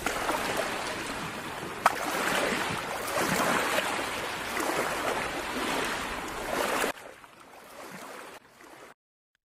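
Ocean waves washing in, swelling and easing, with one sharp click about two seconds in. The surf cuts off suddenly about seven seconds in, leaving a faint trace that stops shortly after.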